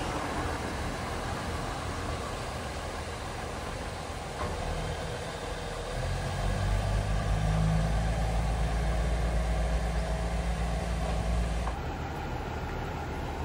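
KiHa 100 diesel railcar's engine running as the train travels along the line, its low drone growing louder about six seconds in. Near the end it changes to the quieter, steady idle of the railcar standing at a station platform.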